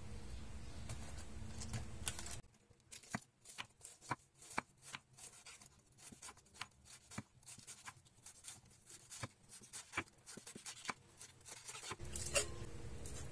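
A large kitchen knife slicing a half head of cabbage on a wooden chopping board: a run of irregular crisp cuts and knocks on the board, after a steady low hum at the start. Near the end comes one short ringing clink from a glass bowl.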